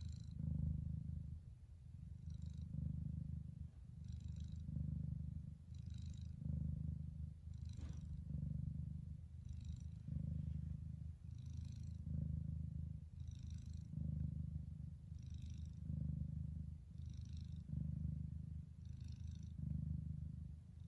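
Bengal cat purring steadily and close up, the purr swelling and fading with each breath about every one and a half to two seconds. This is the constant purring that is normal for a Bengal queen just before giving birth.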